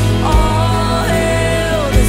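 Live worship band playing an instrumental passage: drums, bass and guitars under sustained chords, with low drum hits about a third of a second in and again at the end.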